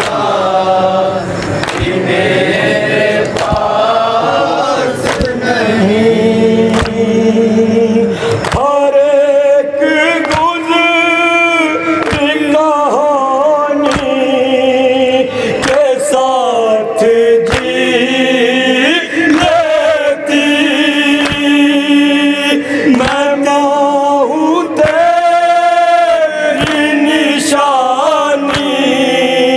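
An Urdu noha, a Shia lament, chanted by men's voices through a microphone, with the lead reciter holding long melodic lines.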